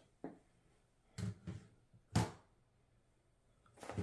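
Handling noise on a tabletop: a few short, light knocks as antenna parts are set down and moved, the loudest about two seconds in, then fabric rustling near the end as a hand reaches into the soft carry bag.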